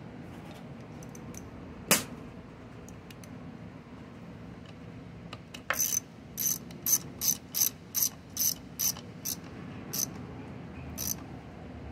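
Small hand socket ratchet clicking as a 9 mm nut is tightened. There is one sharp click about two seconds in, then a run of about a dozen short ratchet clicks, roughly two a second, from the back-strokes of the handle.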